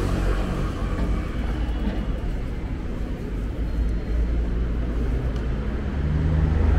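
City street traffic: a steady low rumble of vehicle engines and passing cars.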